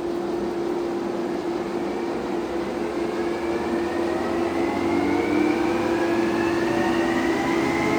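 Summit 17"x60" engine lathe running with its spindle at 1500 RPM: a steady hum with a faint whine that rises slowly in pitch as the spindle comes up to speed. The spindle is super quiet at this speed.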